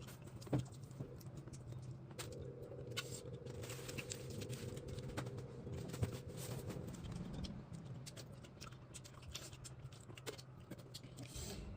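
Someone eating: chewing, with scattered small clicks and taps, over a steady low hum.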